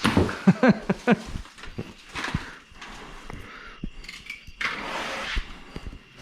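A few short laughs, then rustling, scraping and light knocks of cardboard packaging as a large parts box is opened.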